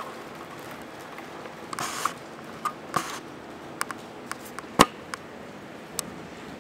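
Irregular light clicks and knocks over a steady background hiss, with one sharp click about five seconds in.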